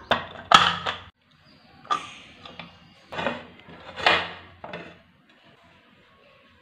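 Metal pressure cooker lid clanking and scraping against the pot rim as it is fitted and twisted, its handles knocking together: several separate knocks over about five seconds, then they stop.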